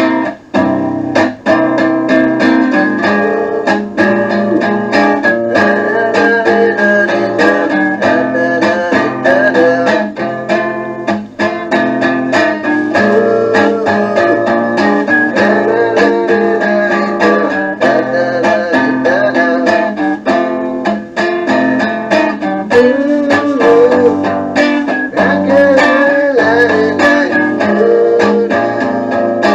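Guitar-led music playing back from a cassette tape, continuous and loud.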